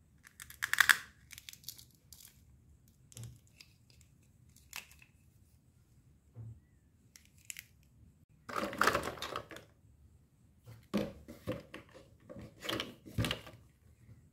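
Plastic toy fruit and vegetable pieces clattering and rustling as they are handled in a cardboard box, with tearing sounds as their velcro-joined halves are pulled apart. There are short bursts, the loudest about a second in, a longer one near the middle, and a quick run of them near the end.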